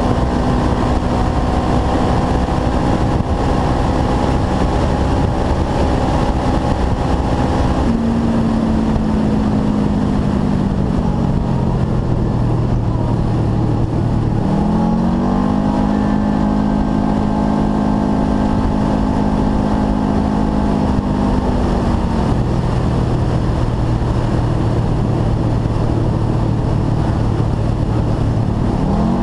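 2012 Polaris RZR 4 900 XP's parallel-twin engine running through a full race exhaust under way: steady at speed, easing off about 8 seconds in, picking up again about 15 seconds in and holding, easing off again about 22 seconds in, with a brief rev near the end. Gravel and wind noise runs underneath.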